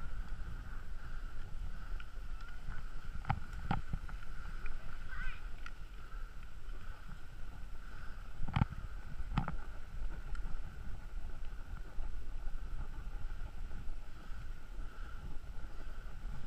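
Skis sliding over packed snow, heard as a steady low rumble with wind buffeting the action camera's microphone, under a faint steady whine; a few sharp knocks, two pairs, about three and a half and nine seconds in.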